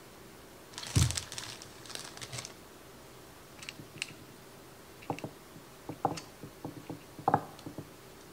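Hands spreading shredded cooked chicken over lasagna noodles in a glass baking dish: a soft thump and rustle about a second in, then scattered light clicks and taps.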